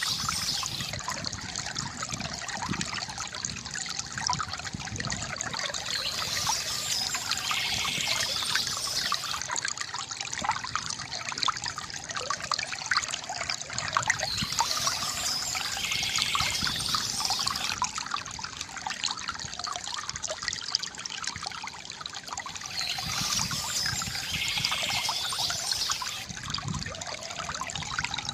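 Water from a bamboo fountain trickling and gurgling steadily, with brighter stretches coming back about every nine seconds.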